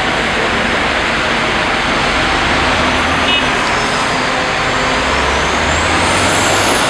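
A heavy all-terrain mobile crane's diesel engine running loudly as the crane moves off. Near the end a high whine rises and then falls in pitch.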